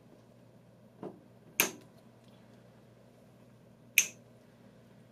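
Two sharp snips as flush cutters trim the tails of nylon cable ties, about a second and a half in and again at about four seconds, with a soft tap just before the first. A faint steady hum runs underneath.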